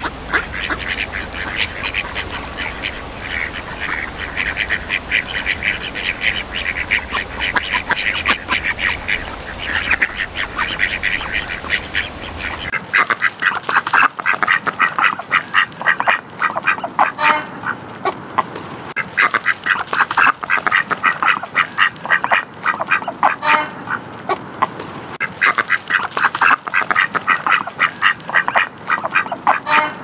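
Ducks quacking in quick, overlapping runs of calls. About 13 seconds in the sound cuts abruptly to another recording of ducks, with louder bursts of rapid quacks separated by short pauses.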